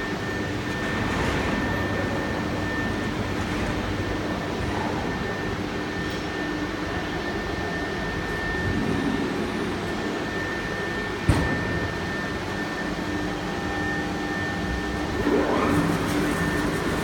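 CNC router with twin HSD spindles and servo drives running: a steady mechanical noise with a constant high whine and a lower hum. There is a single sharp click about eleven seconds in, and a short rising sweep near the end.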